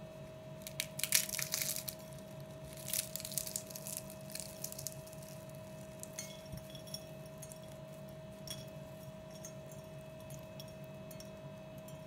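Crisp layers of a potato börek made with yufka pastry crackling as hands break it apart, in two bursts of crackle about a second in and three seconds in, then scattered small crackles as flakes fall onto a glass plate. The crackle shows the pastry still crisp the day after baking. A faint steady hum runs underneath.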